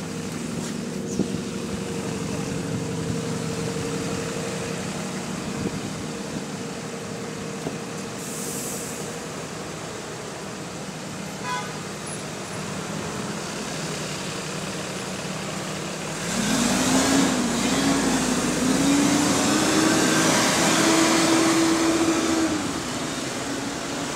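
Alexander Dennis Enviro400 double-decker bus standing with its engine and cooling fan running steadily, then about 16 s in a louder, wavering and rising engine and fan note as the bus pulls away, falling back about 22 s in.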